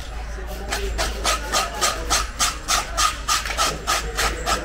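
A blade scraping the scales off a large cobia, a steady run of quick rasping strokes at about four a second, starting about a second in.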